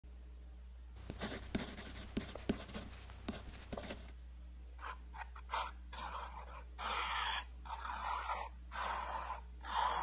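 A squeezed plastic paint tube crackles and clicks for a few seconds, then a metal palette knife scrapes thick acrylic paint across textured canvas in a series of separate strokes.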